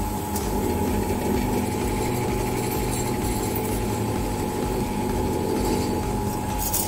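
Pillar drill press running with a steady motor hum.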